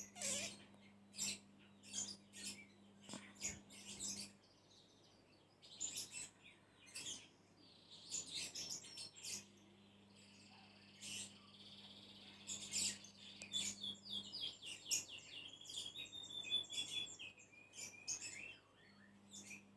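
Grated coconut being squeezed and kneaded by hand in a metal bowl to press out coconut milk: soft wet squelches and small clicks, irregular throughout. A bird chirps in the background, with runs of quick falling chirps in the second half.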